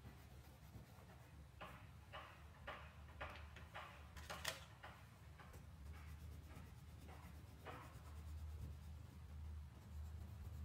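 Crayon scribbling on paper in short back-and-forth strokes, about two a second, faint. The strokes bunch in the middle of the stretch and ease off after about eight seconds.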